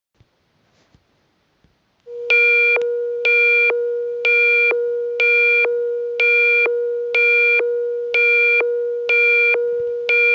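Synthesized emergency-alert attention tone: a steady low tone with a higher beep pulsing over it about once a second. It starts about two seconds in and runs to the end.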